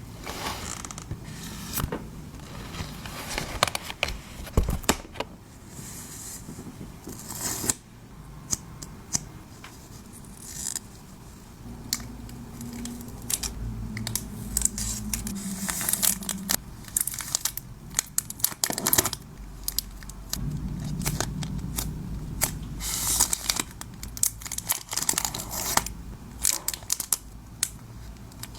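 Hand-packing of photocards: crinkling and tearing of plastic and paper packaging, with many sharp small clicks and taps throughout.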